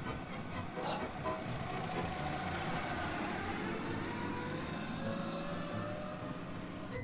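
Citroën Traction Avant pulling away and driving, heard from inside the car: engine and road noise with a whine that rises in pitch and then falls away.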